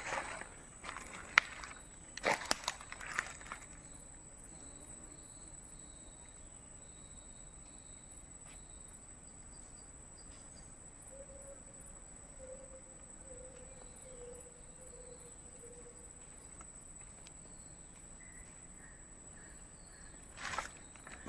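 Forest ambience with a steady high-pitched insect drone. There are rustling footsteps and handling noises in the first few seconds and again near the end, and a faint series of falling notes in the middle.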